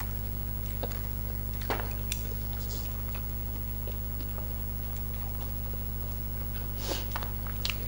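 Cutlery and dishes clinking a few times during a meal, with sharp clicks about a second in, near two seconds and twice near the end, over a steady low hum.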